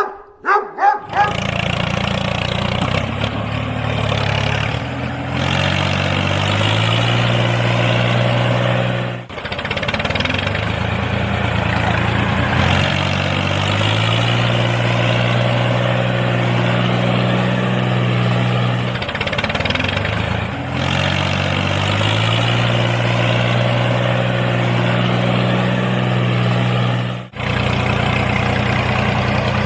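A mini tractor's engine runs steadily, its pitch stepping up several times as it revs. It breaks off abruptly about a third of the way in and again near the end.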